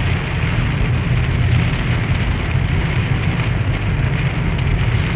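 Heavy rain falling on a moving car's roof and windshield, heard from inside the cabin over a steady low road rumble.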